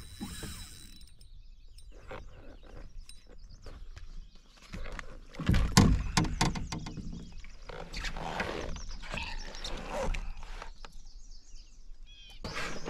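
A hooked fish being landed by hand from a canoe: scattered splashes, line and tackle handling, and knocks against the hull. The loudest splash comes about halfway through.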